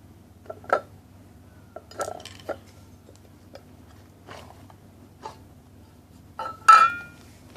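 A spoon and bowl being handled: scattered light knocks and clinks, then one loud ringing clink near the end.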